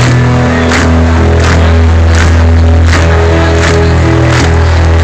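Live rock band played loud over a stadium PA, heard from among the crowd. A drum beat falls about every three-quarters of a second under sustained bass notes and held keyboard chords, with no singing.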